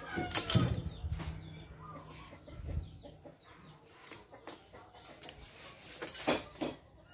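Chickens clucking in the background, with a few sharp clicks and knocks of metal starter-motor parts being picked up and set down on the workbench.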